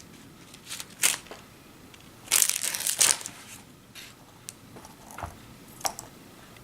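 Rustling and crinkling of plastic kit parts and packaging being rummaged through by hand, in irregular bursts with a longer rustle about two seconds in, followed by a few small sharp clicks of plastic pieces.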